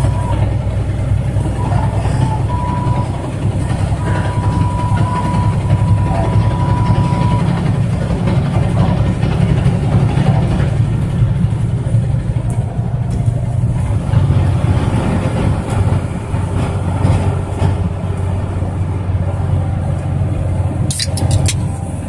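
Cab interior of a heavy truck driving, its engine running steadily with a deep, even rumble under the road noise. A faint steady high tone sounds for the first several seconds, and a few sharp clicks come near the end.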